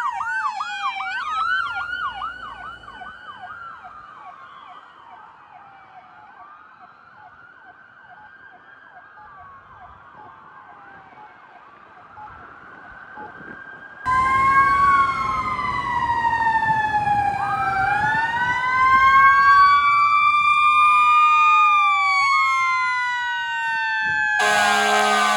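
Fire apparatus sirens on an emergency response: fast yelping sirens fading into the distance over the first few seconds, then faint wails. About 14 s in, it jumps to several loud sirens wailing at once, rising and falling out of step, with a horn blast of about a second near the end.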